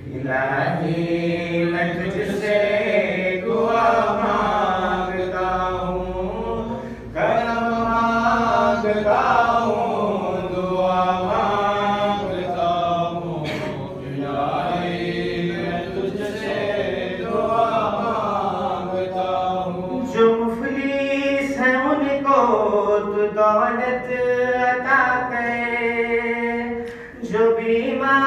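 A man chanting an Urdu noha, a Shia mourning lament, in long sustained melodic phrases. A few sharp knocks sound here and there.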